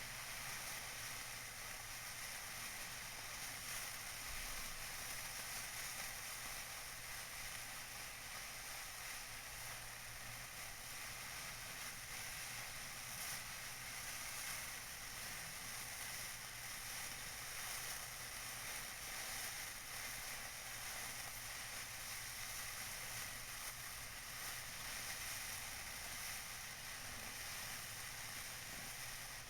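Tissue paper being crinkled and rustled continuously, a dense, steady crackle without pauses.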